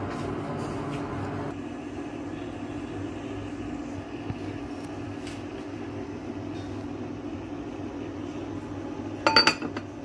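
Steady low hum of a running kitchen appliance. Near the end comes a quick run of sharp clinks as a glass lid is set onto the cooking pot.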